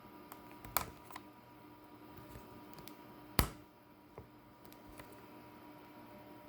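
Small clicks and taps of a Phillips screwdriver working a screw in a laptop's plastic base. There is a sharp click just under a second in and a louder one about three and a half seconds in, over a faint steady hum.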